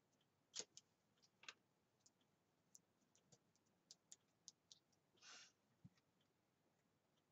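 Faint clicks and small taps from hands smoothing thin foil washi tape onto planner paper and trimming its end with a craft knife, with one brief rustle about five seconds in.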